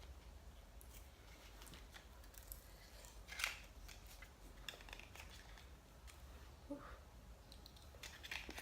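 A lip balm's packaging being opened by hand: a series of faint clicks, scrapes and crinkles, with one sharper click about three and a half seconds in.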